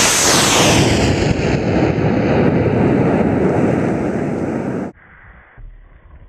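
Cesaroni N2600 Skidmark solid rocket motor at liftoff: a loud, steady roar with a hiss that fades downward as the rocket climbs away. The sound cuts off suddenly about five seconds in, leaving a much quieter low rumble.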